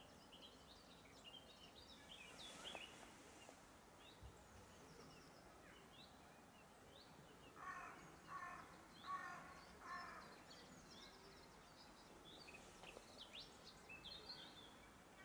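Faint woodland birdsong, scattered high chirps from small songbirds. About halfway through, a bird gives four harsh calls in quick succession, evenly spaced.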